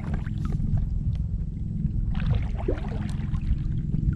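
Kayak under way through the marsh: a steady low rumble throughout, with a brief wavering sound about two seconds in.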